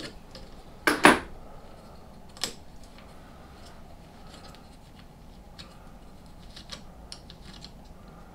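Light metal clicks and knocks of parts being handled on a lathe tailstock fitted with a digital caliper. A sharp double knock about a second in is the loudest, another knock follows a moment later, then faint small ticks near the end.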